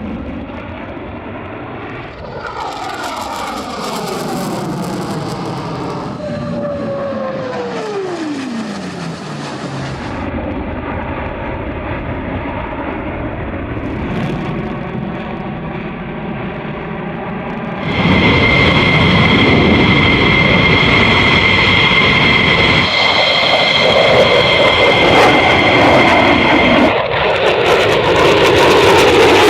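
F-22 Raptor's twin jet engines: a whine that falls steeply in pitch as the jet passes. Later it turns into a much louder, steady jet roar with high whining tones, starting about two-thirds of the way in and dropping near the end.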